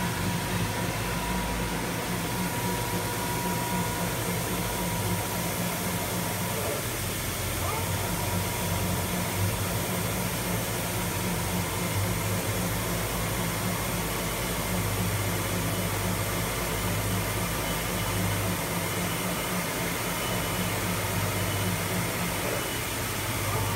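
Steady background hum and hiss of a factory hall, with no distinct events.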